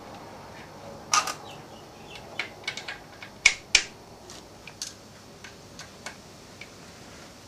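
Scattered sharp metallic clicks and taps as a model diesel engine crankcase casting is fitted into a lathe fixture and clamped by hand; the loudest two come about three and a half seconds in.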